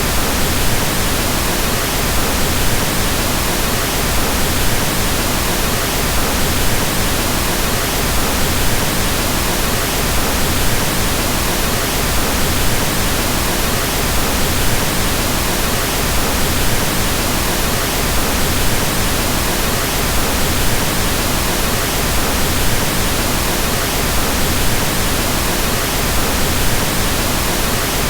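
Steady pink noise: an even hiss across all pitches, heavier in the low end and easing off toward the top, without change or events.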